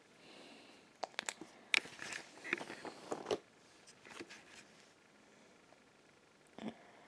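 Sheet of paper being handled and moved: scattered soft rustles and small clicks, most of them in the first few seconds and one more near the end.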